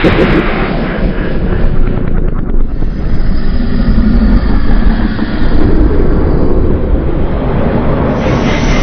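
Loud, continuous rumbling roar of an edited monster sound effect, steady and noisy with no clear pitch, changing character near the end.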